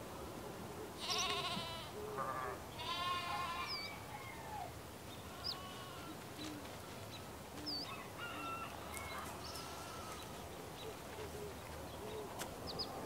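Livestock bleating: two quavering bleats about one and three seconds in, then fainter ones, with a few short high chirps. A couple of sharp knocks near the end.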